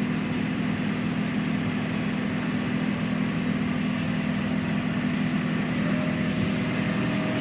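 Small engine running steadily at a constant speed, with no revving.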